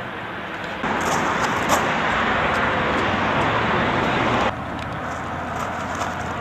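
Inline skate wheels rolling fast over pavement, a steady rushing noise that starts about a second in and cuts off suddenly about four and a half seconds in, as the skates leave the ground for the handrail.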